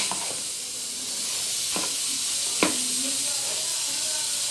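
Pasta sizzling in a hot pan with a garlic-and-margarine sauce as a wooden spoon stirs it, a steady hiss with two short knocks of the spoon on the pan near the middle.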